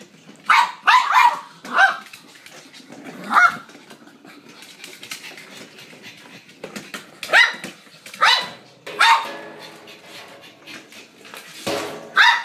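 Pug barking in short, sharp barks, about nine of them spread out with pauses between, a few close together near the start.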